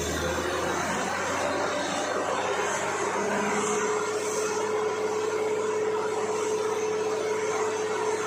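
Borewell drilling rig running steadily: a continuous machine noise with a steady hum that sets in a couple of seconds in.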